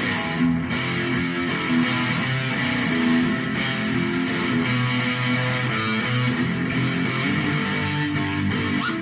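Harley Benton guitar being played: a continuous run of held notes changing every fraction of a second.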